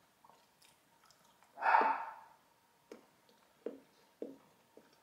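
A person chewing a small piece of advent-calendar chocolate close to the microphone. There is one louder bite or mouth noise just under two seconds in, then short wet chewing clicks roughly every half second.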